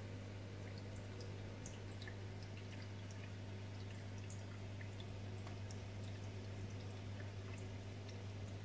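Reef aquarium running: a steady low pump hum with faint trickling and many small scattered drips of circulating water.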